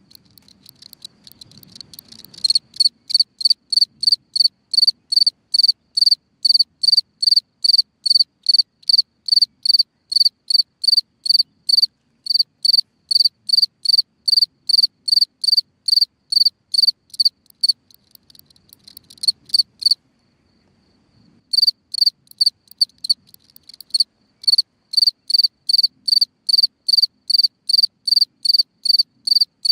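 A cricket singing: a steady run of short, high chirps, a little over two a second. The chirps are softer and uneven for the first two seconds, and the song stops for about a second and a half near two-thirds of the way through before starting again.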